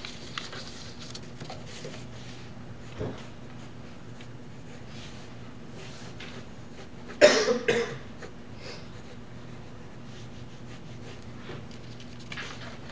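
A single cough a little past halfway, the loudest sound, over a steady low hum and the faint scratch of a pencil sketching on paper.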